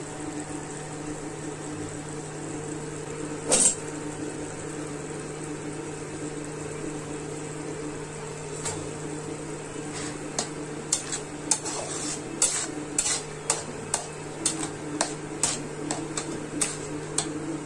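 Thick prawn curry simmering in a metal pan over a steady hum, with one sharp clink a few seconds in. From about ten seconds in, a metal spoon stirs the curry, clinking and scraping against the pan about twice a second.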